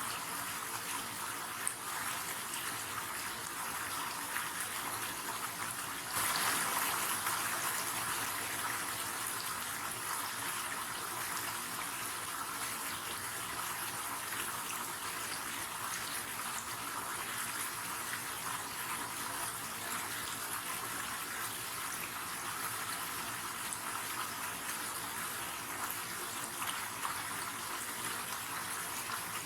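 River water running in a steady rush, briefly louder about six seconds in.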